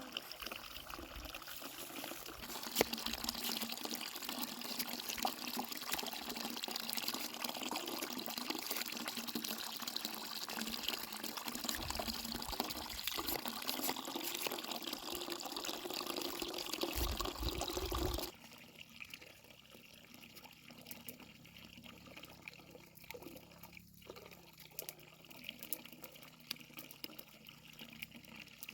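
Water running steadily, then stopping abruptly about eighteen seconds in, leaving a quieter background with a few light knocks.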